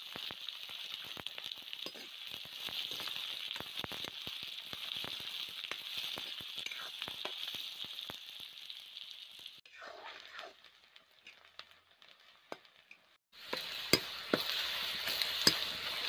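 Sliced onions sizzling in hot oil in a metal kadai, with many small crackles. The sizzle drops away for a few seconds past the middle, then comes back with a couple of sharp knocks as a spatula stirs the onions.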